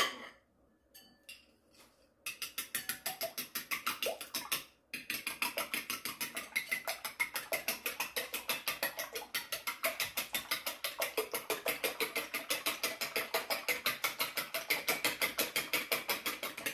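Metal fork beating salted eggs in a ceramic bowl, a rapid, even clicking of the fork against the bowl. It starts about two seconds in, after a few light clicks, and pauses briefly near five seconds before going on.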